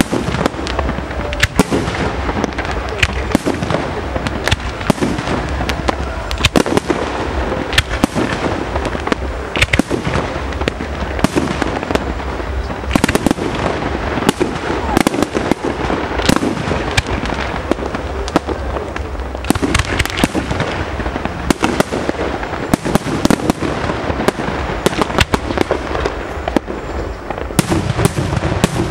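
Aerial firework shells bursting in quick, overlapping succession, a continuous barrage of sharp bangs over a steady crackling.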